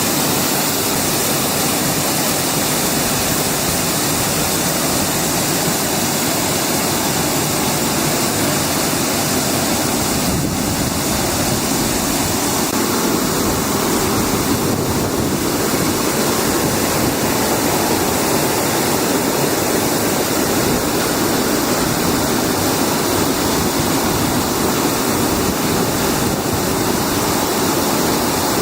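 Air-bubble food washing machine running: a steady, even rushing of water churned by air bubbles.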